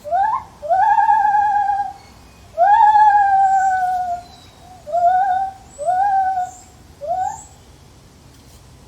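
Lar gibbon calling: six hooting notes, each swooping upward, the second and third drawn out for over a second and slowly falling in pitch, the last three shorter.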